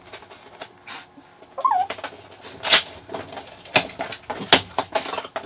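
Cardboard box being handled and pulled across the floor: a run of knocks, scrapes and rustles, with a brief squeak about a second and a half in.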